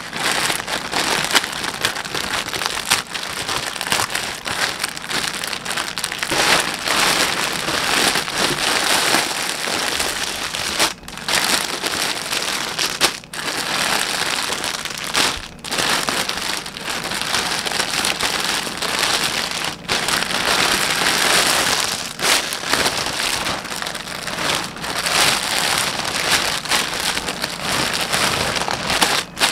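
Plastic mailer bag and the plastic garment bags inside crinkling and rustling steadily as hands open the package and rummage through it, with a few brief pauses.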